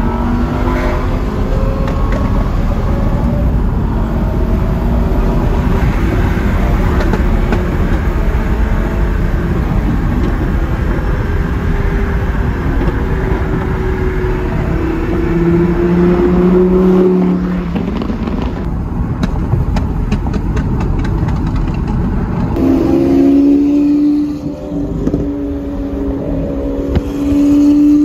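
Lamborghini supercar engines on a freeway, heard from inside a Lamborghini's cabin: a steady engine drone with road noise. The engine note climbs in pitch and drops away about 17 seconds in, then jumps up again and climbs near the end.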